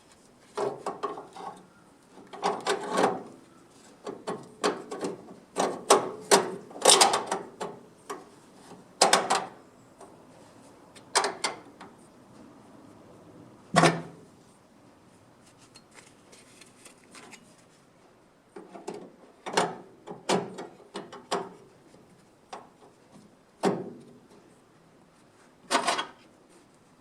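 Hand sheet-metal work on a small steel repair panel: irregular knocks, clanks and short scrapes of metal and hand tools, coming in clusters with pauses between them.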